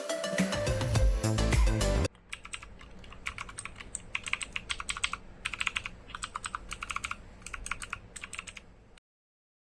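Typing on the JEDEL KL69 mechanical keyboard's blue switches: quick clicky keystrokes in short bursts, which stop abruptly about a second before the end. Loud background music plays for the first two seconds and cuts off suddenly before the typing.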